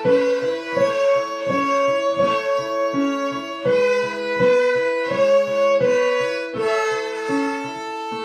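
Violins playing a simple melody together in short, even notes, about two a second.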